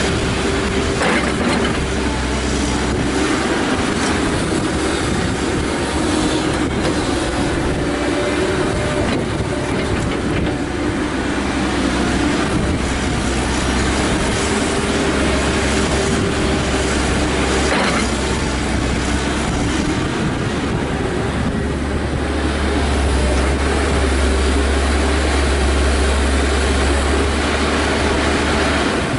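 CAT 312C excavator's diesel engine running under load, with a steady whine over the rumble as it works through its loading cycle, swinging and dumping dirt into a steel end-dump trailer. Two short knocks, about a second in and about eighteen seconds in.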